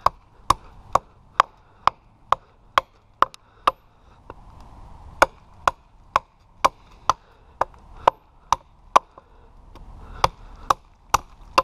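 Estwing tomahawk's steel blade chopping into a hand-held stick angled against a chopping log, carving it: a steady run of sharp wooden chops about two a second, with a short pause about four seconds in and another near the end.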